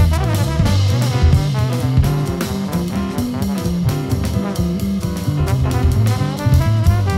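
Live jazz octet playing: horn lines over a stepping electric bass line and drum kit.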